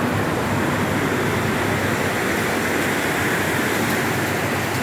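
Heavy rain falling steadily on the roof, heard from inside the house as a loud, even rushing.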